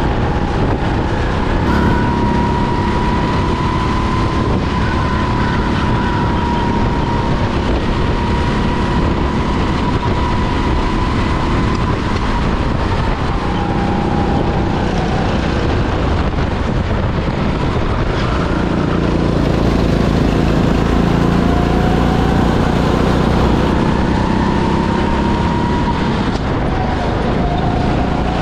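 Sodi rental go-kart being driven at speed around a track: a steady, loud run of motor noise and rushing air, with a thin whine that rises and falls as the kart speeds up and slows for the corners.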